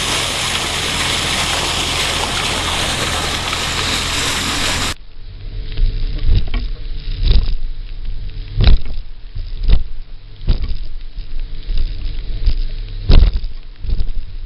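Steady rushing of water and spray as a boat's bow cuts through the sea. About five seconds in, this gives way to a boat's engine droning under loud buffeting bursts about once a second as the boat runs through rough, windy, rainy seas.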